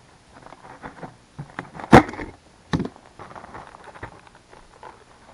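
Close handling noises of a gloved hand working at an ice-fishing hole: scattered rustling, with a sharp loud knock about two seconds in and a smaller one just under a second later.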